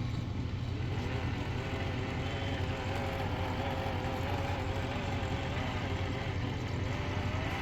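Pfaff Hobbymatic 807 sewing machine running, its motor speeding up over the first second or two and then running steadily with a slight waver in pitch. There is no buzz or rattle, because the flat spot in the motor's rubber drive wheel has been ground round again.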